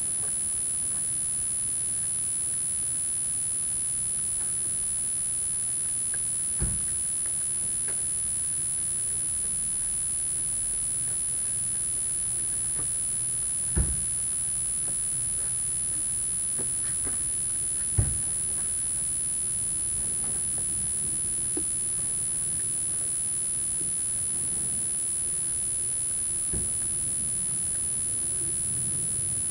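A steady hiss with a thin, high, constant whine, broken by a few dull knocks, the loudest two in the middle.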